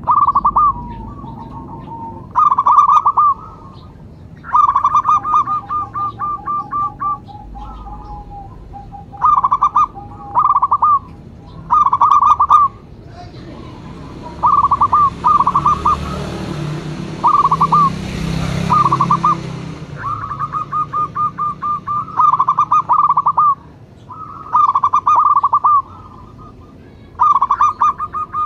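Zebra doves (perkutut) calling: phrase after phrase of rapid, staccato cooing notes, some phrases short and some long runs, with a fainter, lower series of notes from another bird. A soft rushing noise rises and fades in the middle.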